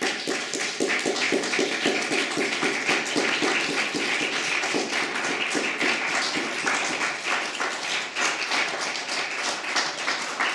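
Small audience applauding: a dense, steady patter of hand claps.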